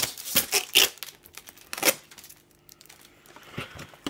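Cardboard model-kit box being opened: the lid pulled off and the box handled, giving several short rustling scrapes in the first two seconds, then quieter handling with a few softer scrapes near the end.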